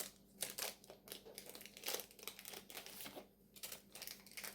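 Doll packaging crinkling as it is handled, a string of irregular soft crackles.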